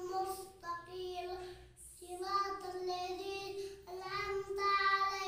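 A young boy singing solo, holding long, drawn-out notes in short phrases with breaths between them.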